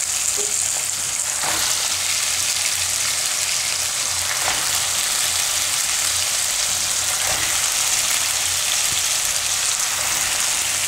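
Raw potato cubes frying in hot oil with cumin seeds in a kadai: a steady sizzle, with a few faint knocks.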